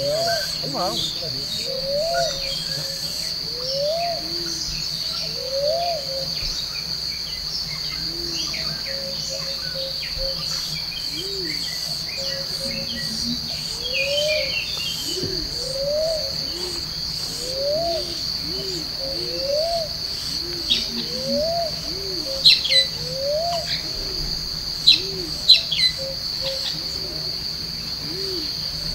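Forest ambience: a steady high-pitched insect drone, with a short low call that rises and falls and repeats about every one to two seconds. Several sharp, quick chirps come in the second half.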